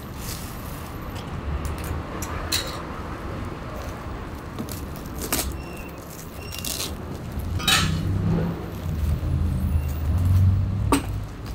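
Low rumble of passing road traffic, swelling about eight seconds in as a vehicle goes by, with scattered sharp clicks and short rustles of plastic wrap and cardboard being handled.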